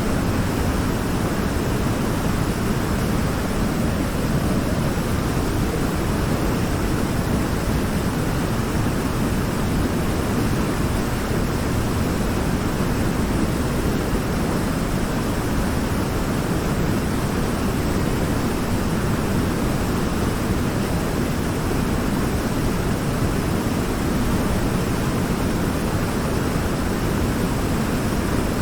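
Waterfall: a steady rush of falling water, full and deep, with no breaks or changes.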